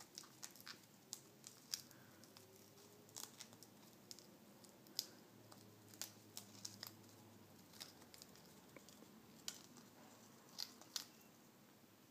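Male Eclectus parrot chewing on a toy ring and rope tassel with its beak: faint, irregular sharp clicks and crunches, a couple of them louder around the middle and near the end.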